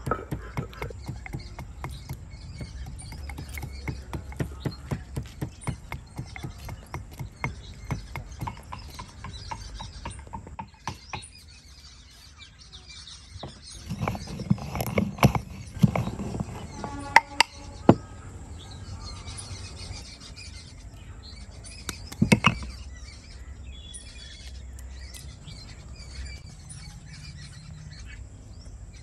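Masala being ground by hand on a flat stone slab, a run of rhythmic grinding strokes. Later comes a cluster of louder knocks from a wooden pestle in a wooden mortar, then a single knock.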